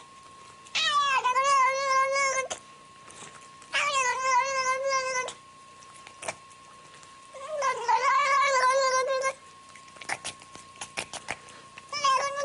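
Domestic tabby cat caterwauling: long, drawn-out yowls with a wavering pitch, three in a row with short pauses between and a fourth beginning near the end.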